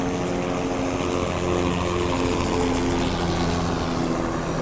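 Steady engine drone of a lifeguard patrol craft: a hum of several even tones holding level throughout, over a constant rushing background.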